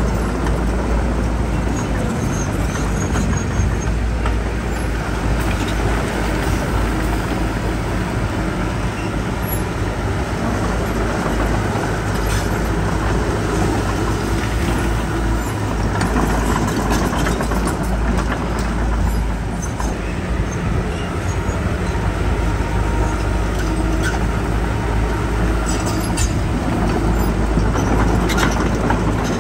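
Heavy diesel earthmoving machinery running steadily, with a few short knocks along the way.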